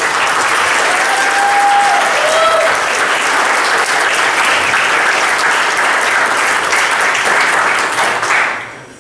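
Congregation applauding loudly just after a baptism by immersion, the clapping dying away near the end.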